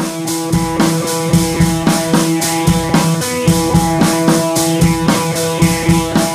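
Rock music with drum kit and guitar playing a steady beat.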